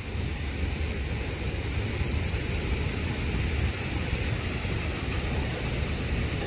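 Steady static hiss from the Necrophonic ghost-box app playing on a phone's speaker, with a low rumble underneath.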